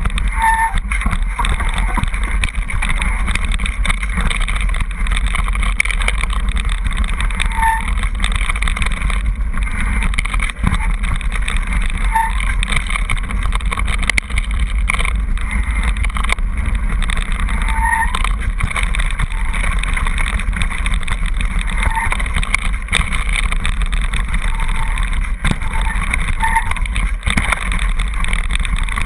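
Mountain bike descending a rough rocky path at speed: a steady loud rumble of the tyres over gravel and stones, with the bike's frame rattling and brief squeaks now and then.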